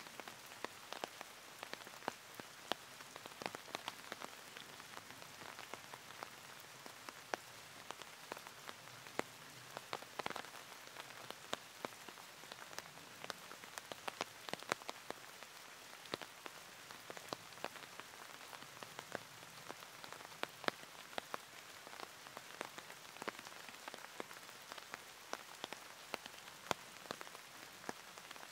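Steady heavy rain falling, with many sharp, irregular taps of single drops striking close by.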